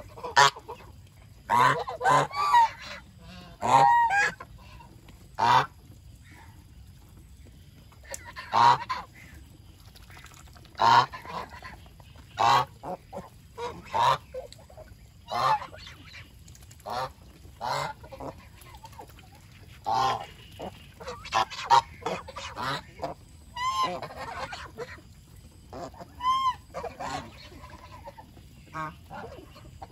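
Domestic geese honking: a long series of short, loud calls, often in quick pairs or overlapping from several birds, with brief gaps between.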